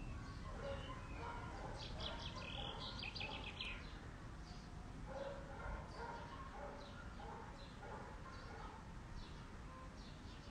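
Birds chirping and calling in the garden trees, with a quick run of rapid chirps about two seconds in, over a faint low background rumble.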